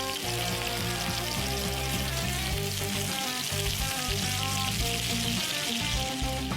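Food sizzling steadily as it fries in a hot pan, under background music.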